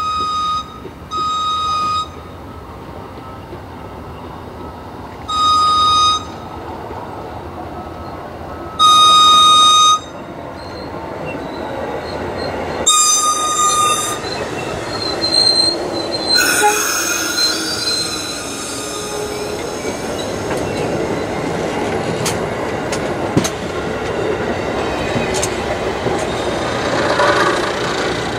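Amtrak diesel locomotive's horn sounds five blasts over the first fourteen seconds, the fourth the longest and loudest. The passenger train then rolls slowly past with a brief high wheel or brake squeal and a rising rumble, its wheels clicking over the rail joints.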